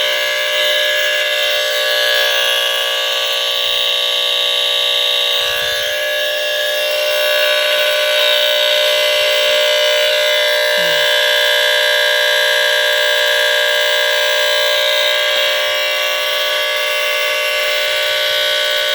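1970s AC-powered smoke alarm horn sounding continuously after being plugged in: a steady, harsh squealer-type tone with no break.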